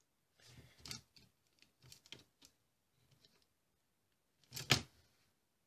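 Hands working wooden parts on a wooden board: flame-charred wooden numbers pressed into place and a wooden folding ruler laid against them. Soft scrapes and taps, then one louder sharp knock about four and a half seconds in.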